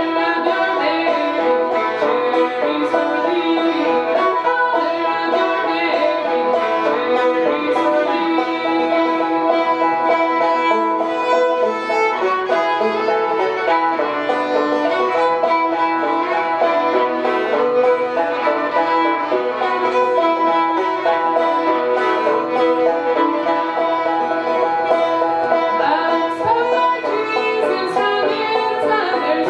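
A banjo and a fiddle playing a tune together, with plucked banjo notes under the bowed fiddle melody and no singing.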